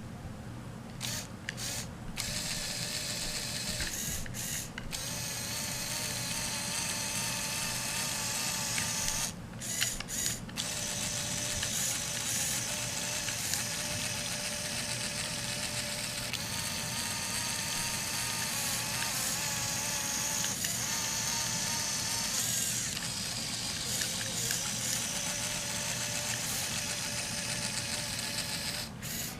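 Lego Technic electric motors and plastic gears whirring as the model semi-truck is driven, the whine wavering in pitch and stopping briefly a few times, about a second in, around four seconds, near ten seconds and near the end.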